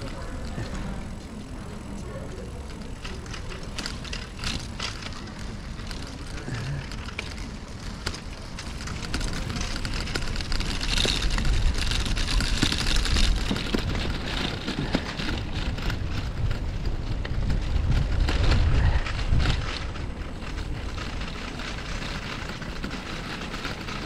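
Bicycle riding over brick paving: a steady low rumble from the tyres with many small rattles and clicks, growing louder about a third of the way in and easing off near the end.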